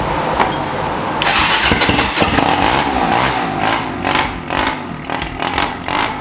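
Kawasaki KFX400 quad's single-cylinder four-stroke engine running, with uneven surges as the throttle is worked.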